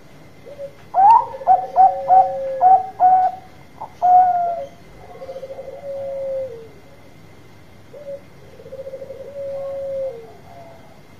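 Caged zebra dove (Bangkok-type perkutut) cooing: a run of short, loud staccato coos starting about a second in and ending on a longer note, followed twice by a softer rolling, trilled coo.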